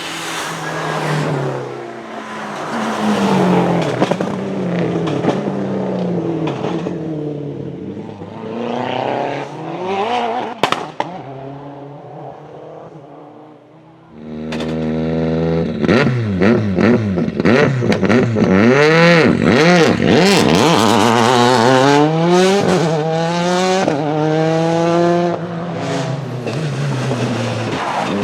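Ford Focus WRC rally car's turbocharged 2.0-litre four-cylinder engine revving up and down, with a few sharp pops near the middle. About halfway it jumps suddenly louder, then rises and drops in pitch again and again as the car accelerates hard through the gears.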